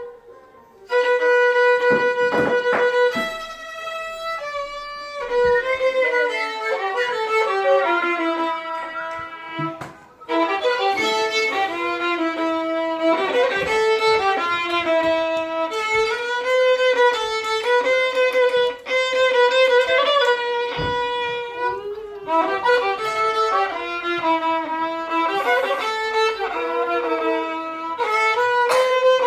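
Solo violin melody: long held notes with slow bends, mixed with quicker runs of notes, after a brief pause about a second in.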